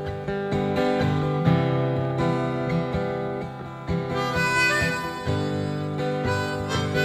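Live acoustic guitar strumming chords in an instrumental break, with a harmonica melody coming in about four seconds in.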